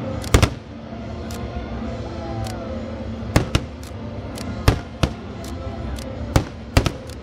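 Aerial fireworks shells bursting: a string of sharp bangs a second or so apart, the loudest just after the start.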